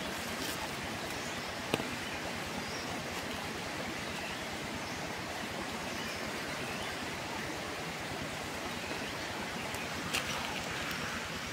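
Steady rushing of running water, with a couple of faint clicks about two seconds in and near the end.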